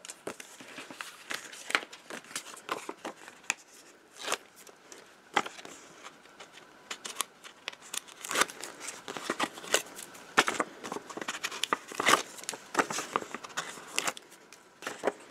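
Cardstock being handled on a cutting mat, with double-sided adhesive tape strips peeled and pressed onto a card: irregular rustles, taps and sharp clicks of paper and tape.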